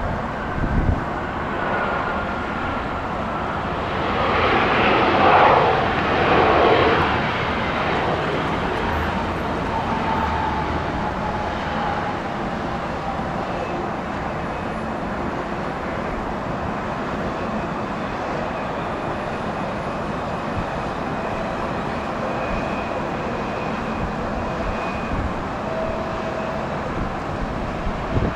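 Jet engines of an Embraer E175 regional airliner landing: a steady rushing roar that swells to its loudest about five seconds in, with a thin whine that slowly falls in pitch, then settles into a steady engine hum.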